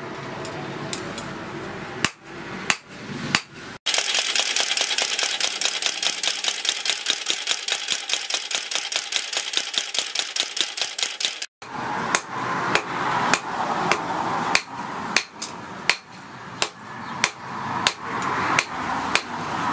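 Hand hammer striking red-hot steel on an anvil in spaced blows, then a power hammer pounding the blade rapidly and evenly for several seconds, then hand hammering again at about two blows a second.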